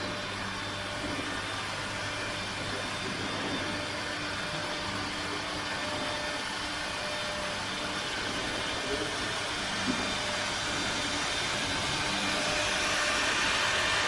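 Steady machine noise from an ultrasonic filter bag welding machine running: an even hiss with a low hum underneath, growing slightly louder near the end.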